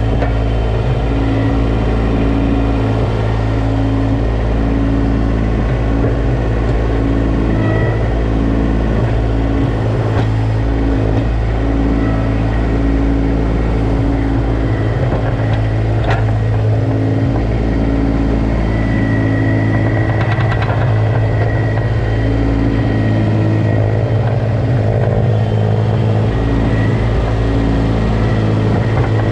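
Kubota D1105 three-cylinder diesel of a Baumalight TRL620D mini track loader running steadily under operation, with a couple of brief knocks.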